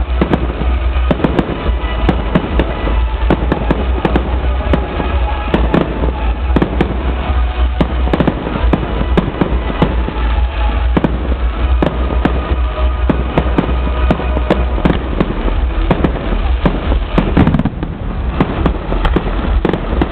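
Fireworks display going off continuously, with dense rapid bangs and crackles.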